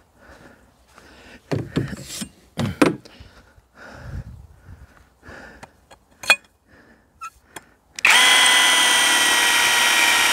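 Scattered handling clicks and knocks, then about eight seconds in a cordless drill starts suddenly and runs at a steady high whine, its pitch dipping briefly near the end.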